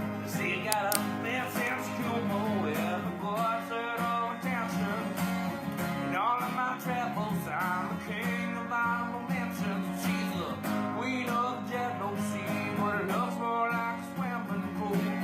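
Country song with strummed acoustic guitar.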